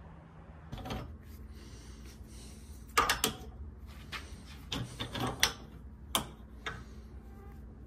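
Metal hardware and a hand tool being handled at a workbench vise: a series of sharp clinks and knocks, irregularly spaced, the loudest about three seconds in.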